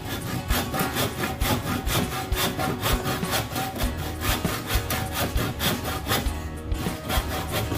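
Handsaw cutting through wood in quick, steady back-and-forth strokes.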